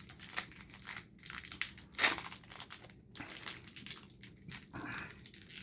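Plastic candy wrapper of mango Enchilokas being handled and opened, crinkling in irregular crackles, with a louder crackle about two seconds in.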